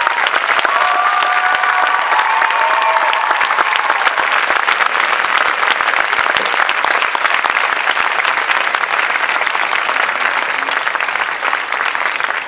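Audience applauding: dense, steady clapping, with a few voices calling out over it in the first few seconds.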